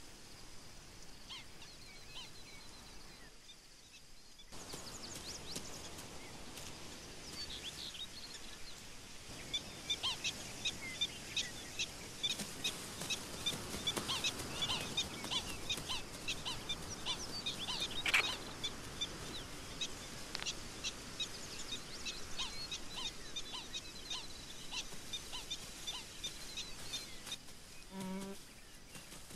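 Grassland ambience full of many short, high chirps and calls, with a steady outdoor hiss and some insects. Near the end comes one short, lower pitched call.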